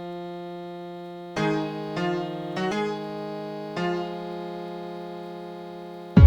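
Keyboard playing slow, sustained chords in a song, each chord ringing and fading before the next is struck, about four in all. A deep kick drum comes in right at the end.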